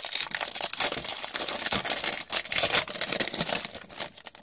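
A foil trading-card pack wrapper being torn open and crinkled in gloved hands, with the cards slid out of it. The dense crinkling eases off about three and a half seconds in, leaving a few light clicks.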